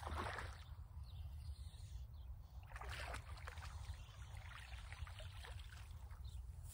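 Water splashing in a few short bursts, the strongest at the start and about three seconds in: a hooked largemouth bass thrashing at the surface as it is reeled in and landed.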